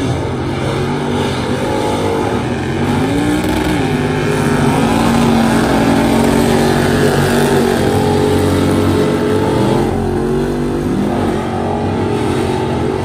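Race trucks' engines running hard at high revs around a mud track, the engine note rising about three seconds in, then holding steady.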